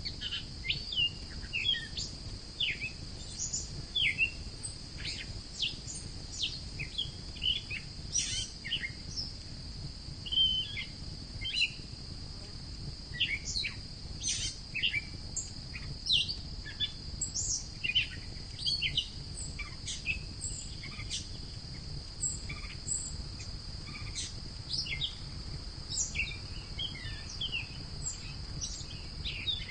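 Birds chirping and calling in many short notes over a steady high insect drone, with a low steady rumble underneath.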